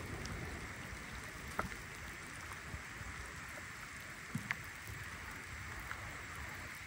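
Steady hiss of rain falling on a river, with a low rumble underneath and a few faint ticks.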